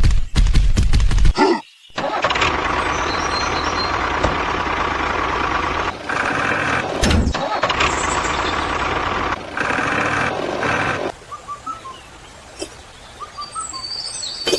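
A rapid, even knocking, then a loud, steady engine-like machine noise that stops suddenly about eleven seconds in. After it come faint bird chirps.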